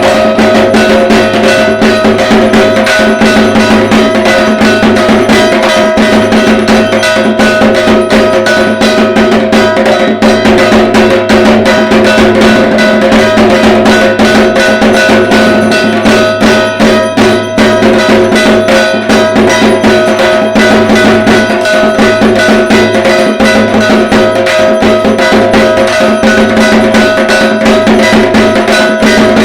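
Dhak drums of Durga Puja beaten in a fast, dense, unbroken rhythm, with a ringing metal percussion instrument sounding steadily along with them.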